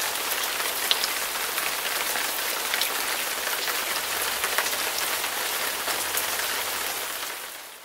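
Steady rain falling, a dense hiss with many individual drops ticking sharply; it fades out near the end.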